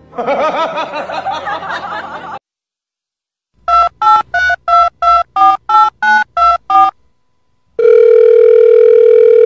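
Telephone keypad tones: eleven short two-tone beeps at about three a second, followed by a steady dial tone lasting about two seconds. A wavering voice-like call fills the first two seconds, before the beeps.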